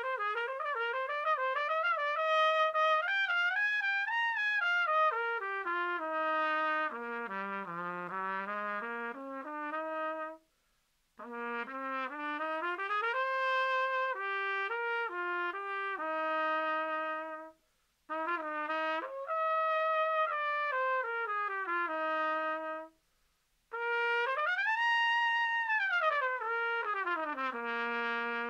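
Cornet played solo: a JP cornet with a rose brass bell and a Smith Watkins leadpipe, playing melodic phrases with runs of moving notes. The playing stops briefly three times for breaths, and there is a long held note near the end.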